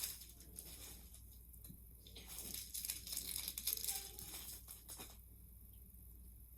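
Plastic packaging crinkling and crackling as it is handled and pulled open. There is a short burst at the start and a louder, longer stretch in the middle.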